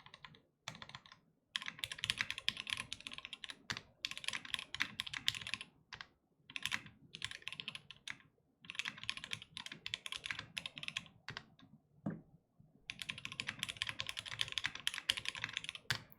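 Mechanical keyboard being typed on fast, in runs of rapid keystrokes a second or two long with short pauses between.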